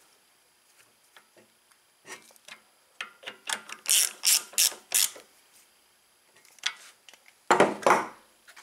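Ratchet wrench clicking in short runs as the ignition coil's mounting bolts are tightened down. A louder clatter near the end.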